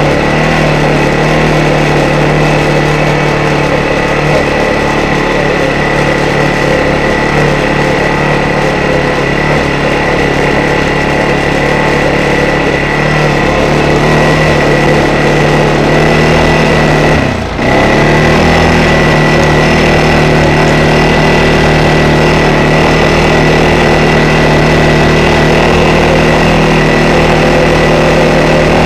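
ATV engine running at a steady speed, heard close from on board the riding machine, with a steady high whine alongside. About two-thirds of the way through, the sound dips briefly and falls in pitch, then comes back.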